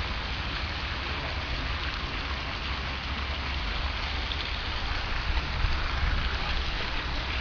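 Wind buffeting the camera microphone in an uneven low rumble, over a steady hissing rush.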